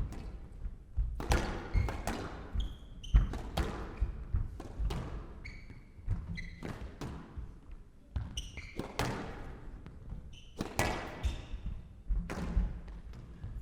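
Squash rally: the ball struck by rackets and smacking off the court walls in sharp hits about every second, with court shoes squeaking in short high chirps between the shots.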